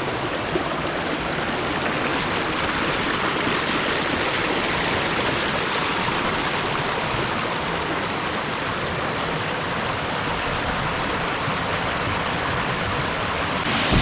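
Small natural mountain-stream waterfall: water rushing steadily over rocks.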